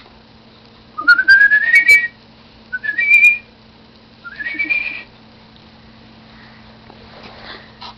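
A person whistling three rising notes, each sliding up in pitch and then levelling off, about a second apart.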